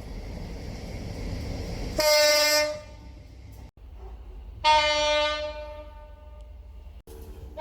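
Two separate train horn blasts. The first is short, about two seconds in, after a low rumble. The second is longer, starting near the middle and dying away.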